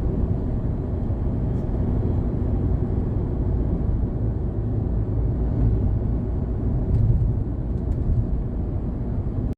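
Daihatsu Hijet Cargo engine running steadily with a low rumble, then cutting off abruptly near the end.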